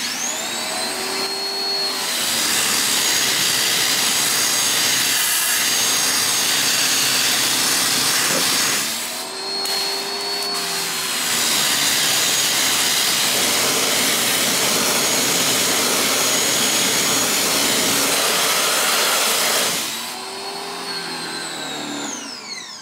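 A 1600 psi electric pressure washer starting with a rising motor whine, then the loud steady hiss of its high-pressure water jet spraying the wooden deck stairs. About nine seconds in, the spray eases and the motor's pitch dips and climbs again, which the reviewer describes as the machine seeming to 'cycle itself a little bit'. Near the end the spray stops and the motor whines down.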